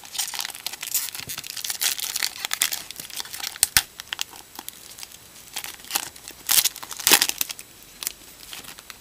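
Foil wrapper of a jumbo trading-card pack being torn open by hand, crinkling and tearing in quick, irregular crackles. The crackles are loudest late on and then die away as the cards come out.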